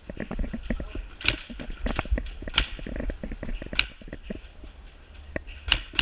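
Crunching footsteps and gear rustling from a moving airsoft player, with several sharp clacks of airsoft gunfire, a quick cluster of them near the end.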